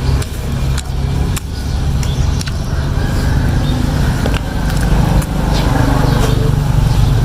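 A steady, loud, low engine-like drone, with scattered short clicks over it.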